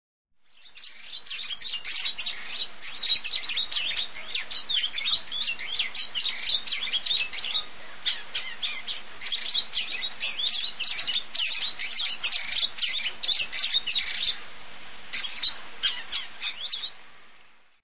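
Many birds chirping in a dense chorus of quick, high calls, with a faint steady hum underneath; it fades in over the first second and fades out near the end.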